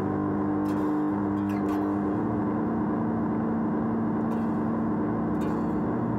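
Electric guitar through a Donner Ultimate Delay pedal, its delay repeats blurred into one steady, sustained drone of held notes. The pitches shift slowly.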